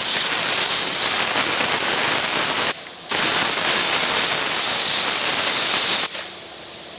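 High-pressure water spray hissing in two long bursts. It breaks off briefly about three seconds in and stops about six seconds in.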